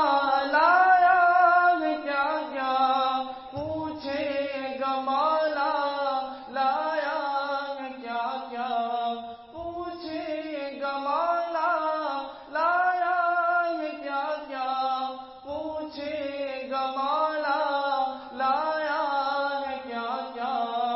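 An Urdu naat, a devotional song in praise of the Prophet Muhammad, sung by a single voice in long gliding phrases that restart every few seconds.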